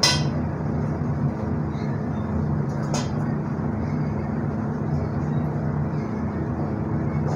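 Cut mango pieces scraped off a chopping board into a metal kadai of boiling sambar, with a sharp clatter at the start and another knock about three seconds in, then stirred with a spoon, over a steady low hum.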